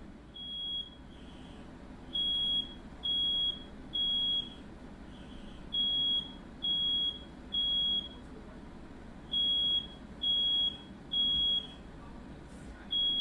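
Smoke alarm sounding its three-beep fire-alarm pattern: three high, steady beeps of about half a second each, a short pause, then the three again, repeating. It has been set off by smoke from fireworks let off in the room.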